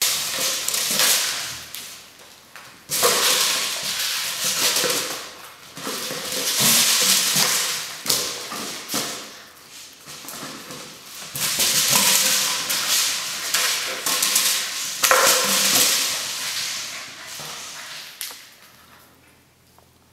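Rustling and crinkling in repeated swells of a second or two each, from puppies tugging and dragging a scrap of paper or plastic across a tiled floor.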